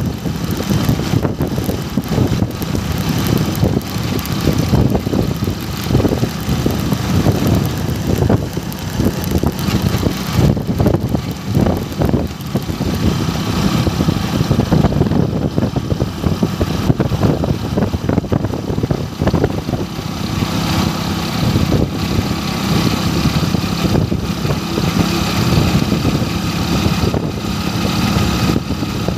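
Motorbike riding at a steady speed: engine running and road noise, with wind rushing over the microphone.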